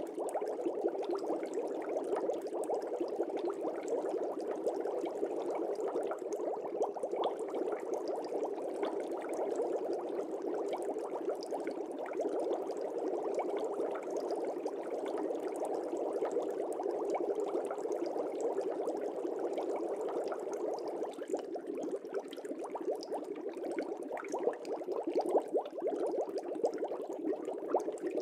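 Fish-tank water bubbling steadily: a dense, continuous stream of small bubble pops and gurgles.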